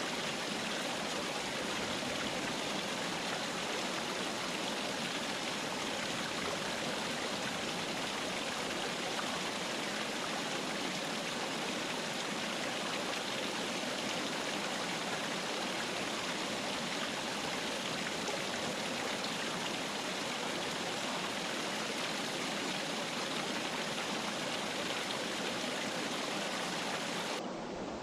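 Clear mountain river flowing over rocks: a steady rush of water. Just before the end it turns slightly quieter and duller.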